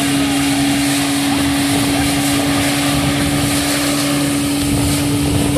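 Motorboat running at speed: a steady engine drone over the rushing of its churning wake.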